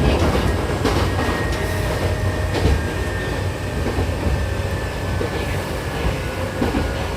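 Inside a Hankyu 7000-series commuter train running: a steady rumble of the wheels on the rails, with a few sharp clicks and a faint, steady high whine.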